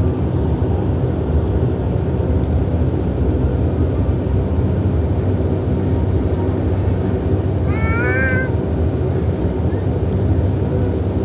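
Dash 8 Q400's Pratt & Whitney PW150A turboprop engines and propellers droning steadily, heard inside the passenger cabin. About eight seconds in, a brief wavering high-pitched cry sounds over it.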